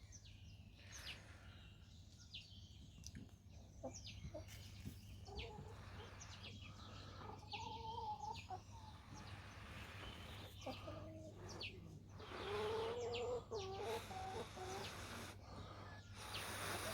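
Chickens clucking faintly, in short wavering calls about halfway through and again a few seconds later, with scattered faint sharp clicks throughout.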